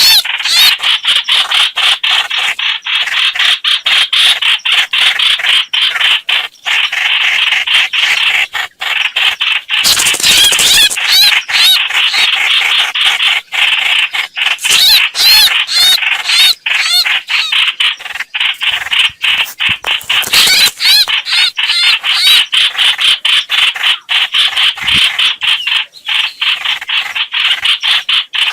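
Lure recording of the bird known in Vietnamese as 'hoạch hoạch', a fast, harsh chattering call repeated over and over almost without pause.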